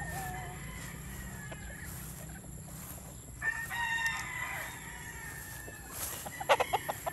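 Young McLean gamecock stags crowing, one clear crow lasting about a second starting about three and a half seconds in, with fainter crowing from other pens. Near the end comes a quick run of sharp taps.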